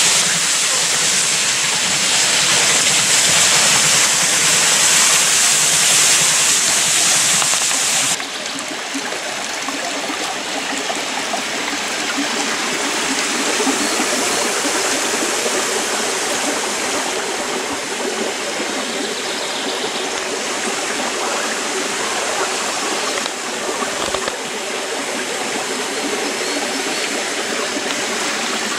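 Water rushing onto a mill's wooden water wheel, a steady bright hiss. About eight seconds in it changes abruptly to a quieter, steady rush of water running down a wooden flume into a stone channel.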